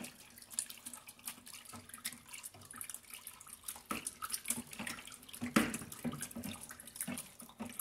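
A long stick stirring a thick mixture of oil, alcohol and lye solution in a plastic tub: faint sloshing of the liquid with irregular light knocks and scrapes of the stick against the tub, the loudest a little past halfway. The mixture is being worked toward saponification, turning into liquid soap.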